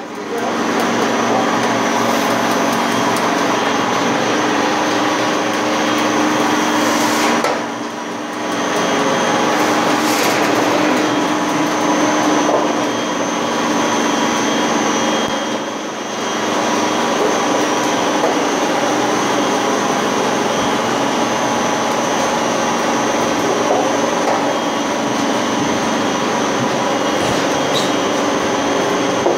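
Cold roll forming machine running, sheet metal strip feeding through its stands of forming rollers: a loud, steady mechanical drone with several held tones, briefly dipping twice.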